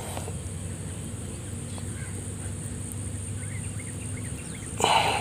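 Steady outdoor background with a low hum and a thin high tone, and a few faint bird chirps past the middle. Near the end, a short loud noisy sound stands out.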